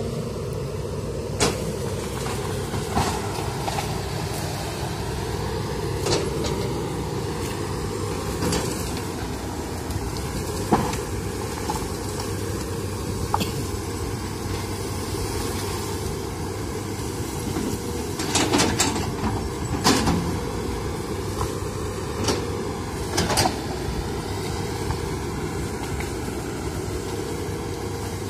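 Hydraulic excavator's diesel engine running steadily as the machine works through brush, with sharp cracks and knocks every few seconds, several in quick succession about two-thirds of the way through.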